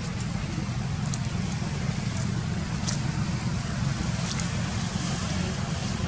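Steady low outdoor rumble, like background traffic noise, with a few faint short high clicks scattered through it.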